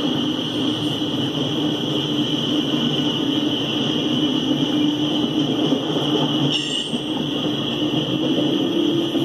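Norfolk Southern coal hopper cars rolling steadily past on the rails, a continuous noise of wheels on track with a brief sharper sound about two-thirds of the way through.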